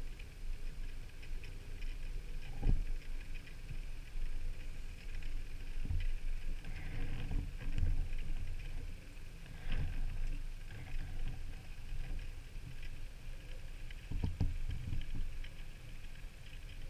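Water-side ambience: a steady low rumble of moving water with irregular soft knocks and faint crackling.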